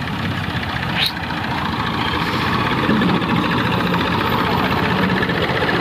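Farm tractor's diesel engine running steadily as the tractor moves, with a short rising squeal about a second in.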